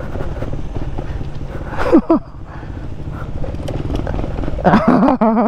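Small cub-style motorcycle engine, an Aveta RangerMax Explorer 130, running at low speed on a rough dirt track with a steady low rumble. A short falling vocal shout comes about two seconds in, and a voice near the end.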